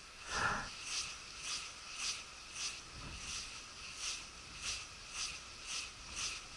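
Spinning reel being cranked on a lure retrieve, giving a high scratchy squeak about twice a second with each turn of the handle. A louder short sound comes about half a second in.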